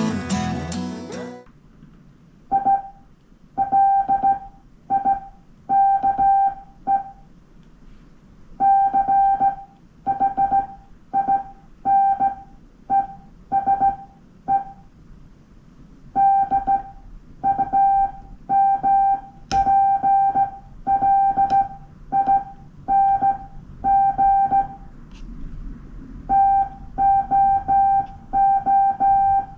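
Morse code sent by hand on a straight key: one steady beep from a QRP ham radio transceiver, switched on and off in short and long marks (dots and dashes), grouped into letters and words with pauses between. Strummed guitar music fades out in the first second or so.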